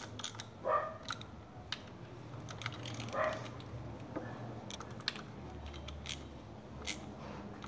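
Irregular light clicks and taps of hand tools and plastic as a stuck ignition coil connector is worked loose, over a low steady hum.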